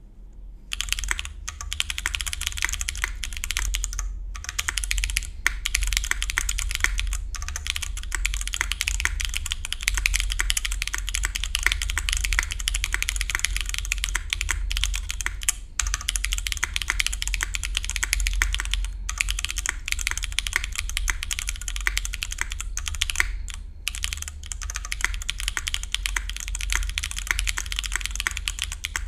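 Continuous typing on a Kei R1 custom mechanical keyboard with a full aluminum plate, frankenswitches (Cherry housings with U4t stems, lubed with 205g0), GMK keycaps and no sound dampening. The keystrokes run as a dense stream of clacks starting about a second in, broken by a few brief pauses.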